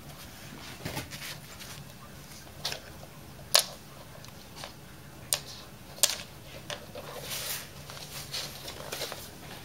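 Kittens playing on a wooden floor and a padded fabric bag: scattered light taps and knocks, the sharpest about three and a half seconds in, then scratchy rustling of the fabric in the last few seconds.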